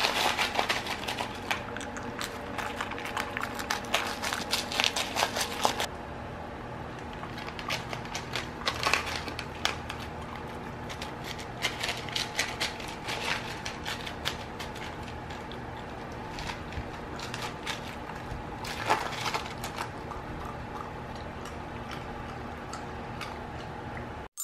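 German shepherd puppy crunching and licking ice chunks from a handheld plastic tub: irregular crisp crunches and clicks, dense for the first six seconds or so, then sparser.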